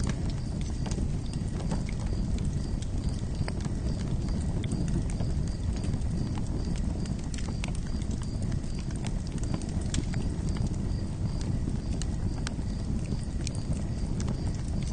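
Campfire crackling: irregular sharp pops and snaps over a steady low rumble, with a faint, evenly pulsing high chirp in the background.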